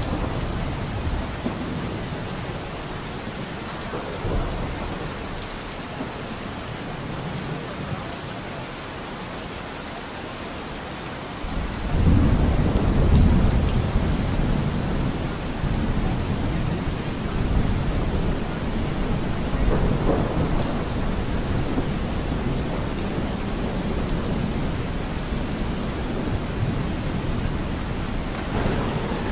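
Steady rain falling, with thunder. A deep rumble of thunder breaks in suddenly near the middle and rolls on, slowly easing.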